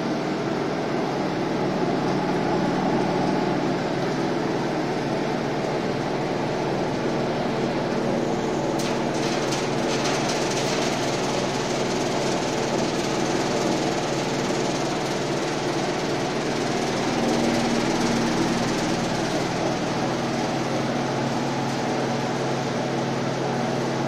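Rectangular vibro screen running: a steady mechanical hum from its vibratory motor. About nine seconds in come a couple of seconds of rapid clicking as small parts rattle on the perforated steel deck.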